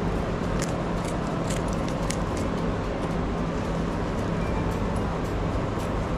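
Steady mechanical hum with a low drone throughout. Over it come a few sharp snips and clicks, mostly in the first half, as scissors cut through a knitted change purse and the small metal items inside are handled.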